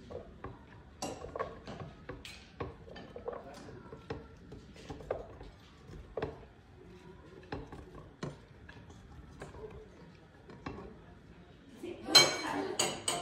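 Vegetable pieces dropped by hand into a plastic Vitamix blender jar: scattered, irregular knocks and clinks of chunks landing in the jar and against the plate, with a louder clatter that rings briefly near the end. The blender motor is not running.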